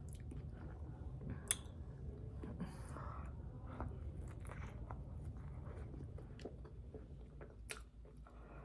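A person chewing a soft pork bun with the mouth close to the microphone, faint wet mouth clicks and smacks scattered through, two of them sharper, about a second and a half in and near the end.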